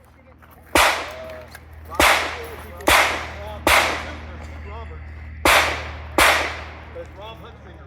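Pistol shots fired in a practical-shooting course of fire: six sharp reports, each with a short ringing tail. They come roughly a second apart, with a longer pause after the fourth.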